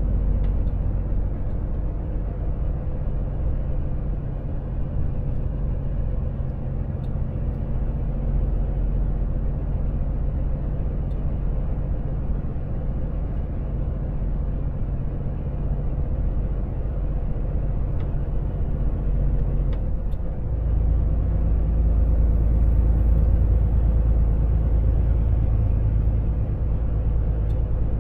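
Volvo FH truck driving at around 45 km/h, heard inside the cab: a steady low engine drone with road noise. The drone deepens and grows louder about twenty seconds in.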